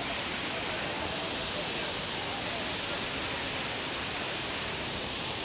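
Steady rush of a muddy mountain torrent pouring over rocks and landslide debris, swollen by days of heavy rain.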